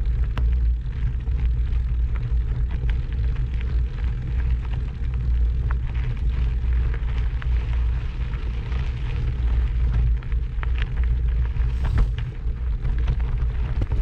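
Wind buffeting the microphone: a steady, loud low rumble, with scattered small clicks and ticks on top.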